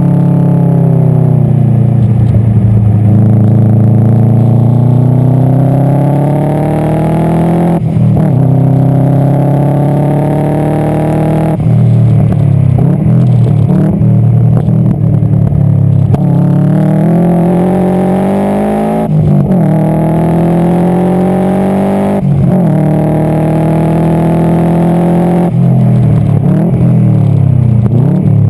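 Subaru Impreza STI GC8's turbocharged flat-four engine under hard acceleration on track. Its revs climb, then fall away sharply about six times as the driver shifts or lifts. The car is running with an exhaust leak.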